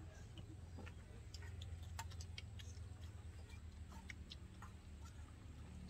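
Faint sounds of a meal eaten by hand: scattered small clicks and taps of a serving spoon and fingers against plates and bowls, over a low steady hum.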